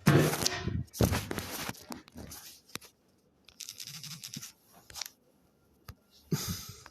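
Crackly rustling close to the microphone in several irregular bursts, loudest at the start, with a couple of sharp clicks between them.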